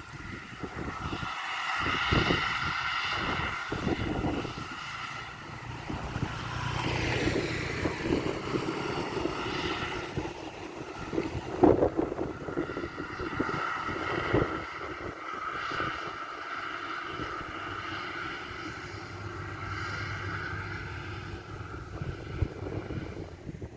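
Maxxi Bimo 102 rice combine harvester running in the field, its engine and machinery making a steady drone with a high whine that comes and goes. Irregular low thumps of wind on the microphone.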